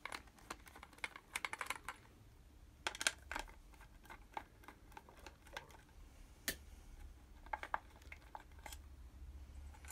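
Irregular small clicks and taps of hard plastic as the plastic control-module housing of a car's cabin blower motor is handled and its plate taken off, with a screwdriver in play. The clicks come in short clusters with gaps between them.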